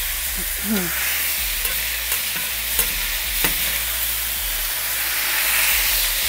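Thinly sliced pork sizzling in a hot cast iron pan on medium-high heat while a spatula stirs it, with a few sharp taps and scrapes of the spatula against the pan.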